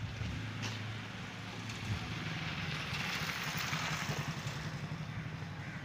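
A motor vehicle engine running nearby, a low hum whose pitch rises about two seconds in, with a rushing noise that swells and fades around the middle.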